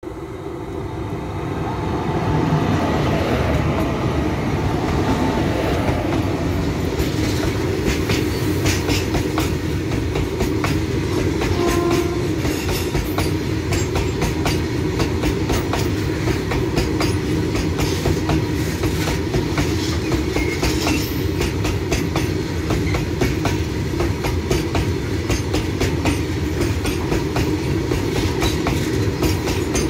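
A long freight train hauled by twin WAG-5A electric locomotives draws up and passes close by. Its rumble grows over the first couple of seconds. Then a string of open freight wagons rolls past with a steady rumble and a constant fast clatter of wheels over the rail joints.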